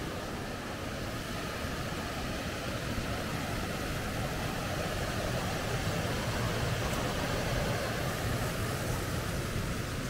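Steady rush of a mountain stream tumbling over small rocky cascades, growing a little louder past the middle.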